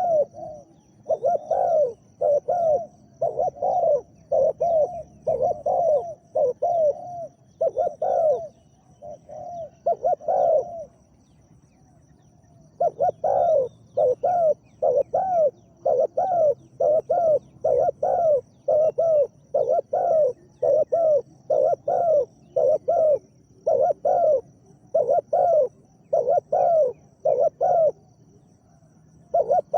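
Spotted doves cooing: runs of short, deep, arching coo notes at about two a second, with a pause of a couple of seconds near the middle.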